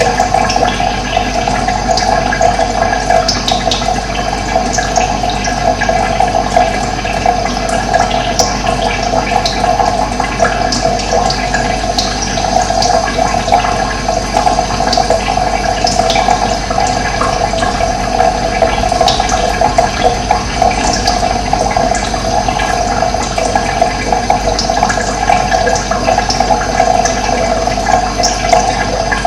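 Running water rushing steadily and loudly, with scattered short high-pitched sounds over it.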